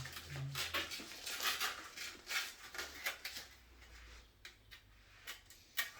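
Irregular light clicks, taps and rustling, as of small hard parts being handled, with a brief low whine right at the start.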